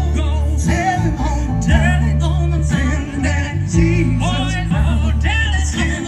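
A song: a solo voice sings a wavering melody over sustained bass and instrumental accompaniment.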